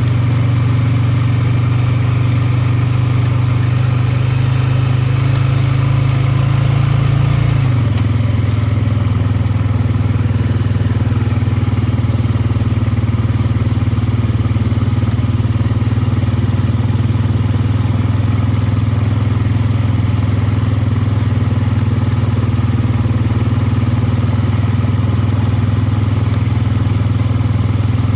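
ATV engine running steadily while riding. About seven seconds in, the engine note drops a little, then holds steady.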